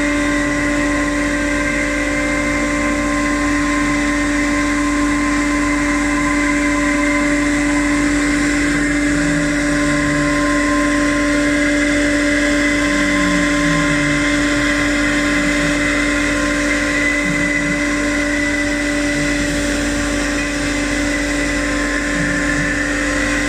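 CNC machine running steadily, a constant motor whine with hiss that holds level throughout.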